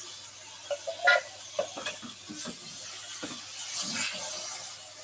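Irregular knocks and scrapes of a metal utensil against a can and a pan as canned cherry tomatoes and their juice go into the pan, over the steady sizzle of vegetables frying. The loudest knock comes about a second in.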